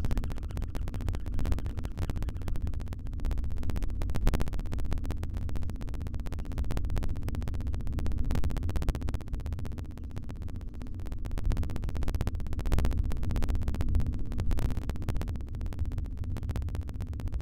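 Constant low rumble with fine scratchy crackling, picked up by the nest-box camera's microphone.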